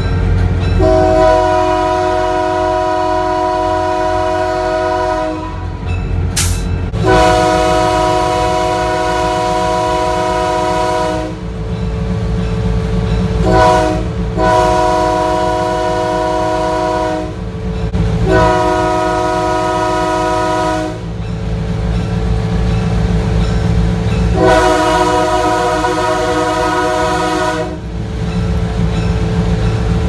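Diesel locomotive air horn sounding from just beside the microphone, over the steady rumble of the moving locomotive. It gives two long blasts, a very short one and a long one, the standard grade-crossing signal, then two more long blasts.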